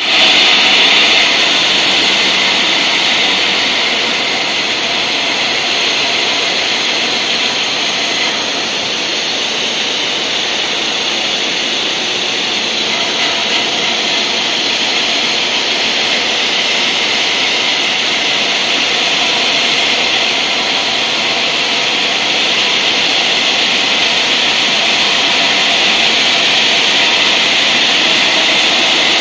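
The large circular diamond saw blade of a Furuite FRT-2000 bridge-type block cutting machine cutting through a stone block. It makes a steady, loud, high grinding hiss that holds evenly throughout.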